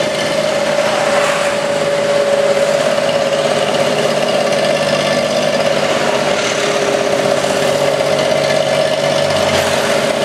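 Steady engine drone of an open-sided passenger vehicle, heard from on board as it drives along, holding one even pitch with road and traffic noise around it. A lower rumble joins near the end as a small truck passes alongside.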